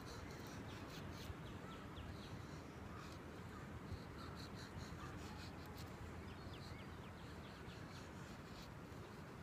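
Opinel pocket knife blade shaving thin curls down a pine stick to make a feather stick: faint, quick scraping strokes in short runs of a few per second.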